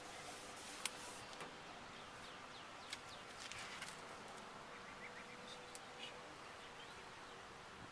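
Faint small-bird chirps now and then, with two sharp clicks, one about a second in and one about three seconds in.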